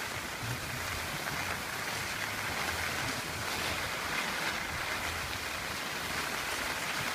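Steady rushing hiss of skis sliding over packed snow as the skier carrying the camera glides downhill, mixed with wind on the microphone.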